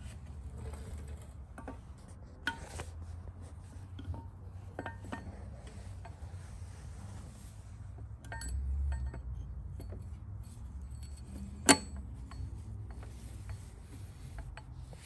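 Scattered metal clicks and clinks as a camshaft with its timing gear is slid by hand into a John Deere diesel engine block and its gear is meshed with the crankshaft gear. The sharpest click comes about two-thirds of the way through, with a brief low rumble a little before it.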